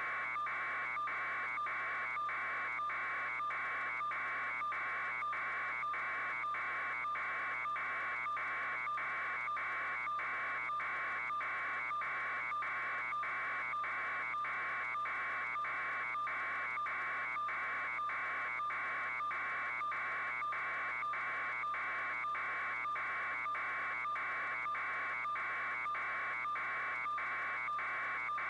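A steady mid-pitched buzz that dips briefly about twice a second, evenly and without change.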